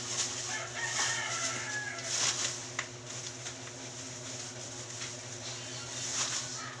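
Plastic packaging rustling and crinkling in irregular bursts as it is handled during rubbish sorting, with a few sharp clicks, over a steady low hum.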